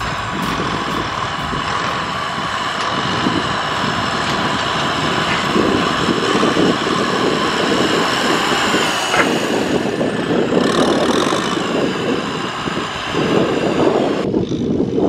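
Kubota diesel tractor engine working hard under load as its front dozer blade pushes soil. It runs steadily with a whine over it, and the sound changes abruptly about fourteen seconds in.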